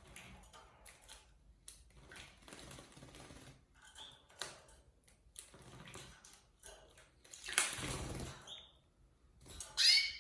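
Canaries bathing: irregular bursts of splashing and wing-fluttering in shallow water, with a few short chirps. The biggest splashes come about three-quarters of the way through and again near the end.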